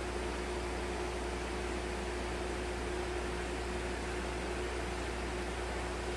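Steady mechanical hiss and hum of equipment in an algae culture room, with a constant low hum and a steady mid-pitched tone underneath, unchanging throughout.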